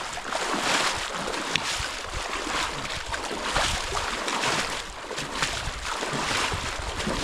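Rushing river water, a steady loud wash of noise with irregular surges.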